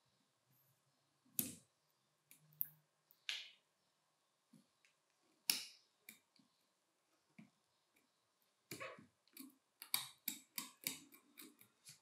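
Sharp clicks and taps of small hard parts being handled. They are scattered at first, then come in a quick run of clicks over the last few seconds.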